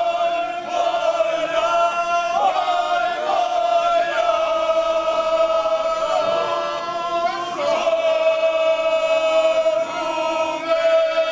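Traditional Serbian village-style group singing: several voices hold one long, high note in close harmony, with short sliding breaks between phrases about two and a half and seven and a half seconds in.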